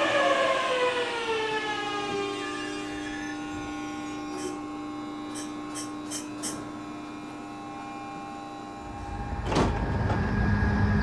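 E531 series electric train's motor whine falling in pitch as it brakes into the platform, settling into steady tones as it stops, with a few short high ticks. A sharp burst of noise about nine and a half seconds in, followed by a low rumble.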